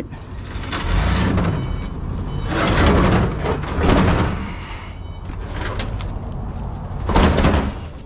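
A washing machine's sheet-metal cabinet scraping and clattering against the galvanised steel cage of an IBC tote as it is dragged and tipped in, in several rough bouts.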